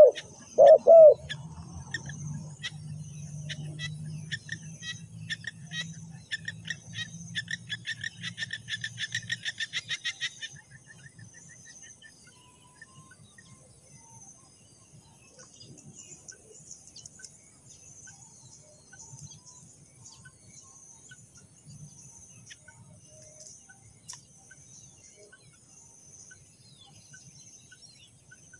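Spotted dove's cooing ending about a second in. Then comes a rapid series of sharp bird chirps that speeds up and grows louder before stopping about ten seconds in, over a steady low hum. A faint, steady high-pitched insect chorus carries on throughout.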